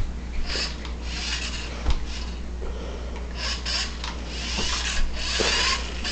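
Toy RC car driven across the floor in short bursts, its motor and wheels making an irregular rasping noise, with a knock about two seconds in and another about five seconds in.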